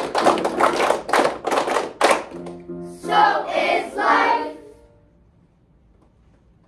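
A children's group clapping in time, about three claps a second, over sustained backing music, stopping about two seconds in. The children then sing a last short phrase together, ending about five seconds in.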